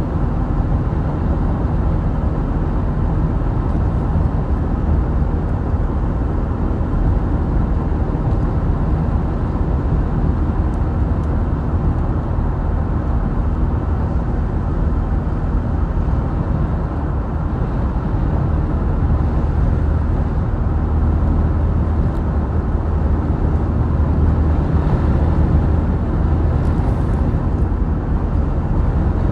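Vehicle driving at a steady speed: continuous low engine and road rumble with no break.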